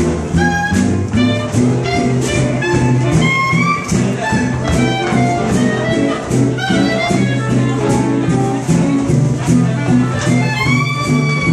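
Swing jazz dance music with a steady beat about twice a second, a bass line stepping one note per beat, and a melody line above.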